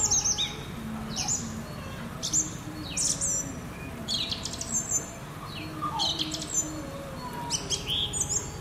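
Small songbirds chirping: short, sharp high calls, often in quick pairs, about two a second throughout.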